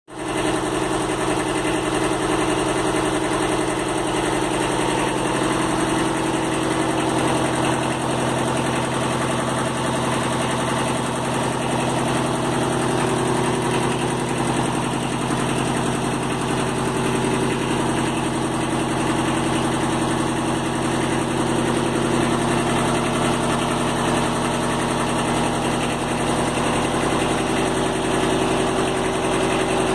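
Kubota B7000 compact tractor's diesel engine idling steadily.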